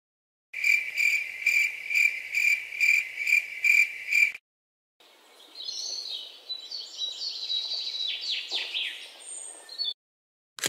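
Cricket chirping in an even rhythm, a little over two chirps a second, cutting off abruptly after about four seconds. After a short pause, birds twitter with quick falling chirps for about five seconds. It is an edited night-into-morning sound effect.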